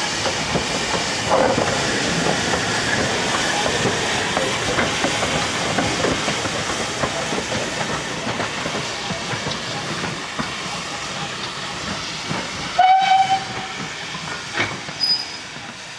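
GWR 4500-class prairie tank locomotive 4555 rolling slowly past, its steam hissing and its wheels clicking over the rail joints, fading as it draws away. Near the end comes one short steam-whistle toot.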